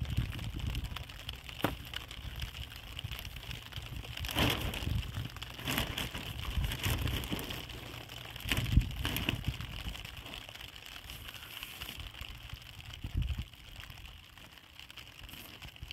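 Stones knocking against stone as they are picked up and set down, with rustling and crackling of plastic sheeting, over a low, uneven rumble of wind on the microphone.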